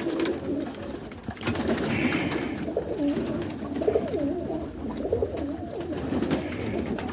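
Roller pigeons cooing in the loft: several low, warbling coos overlapping one another, with a few sharp clicks.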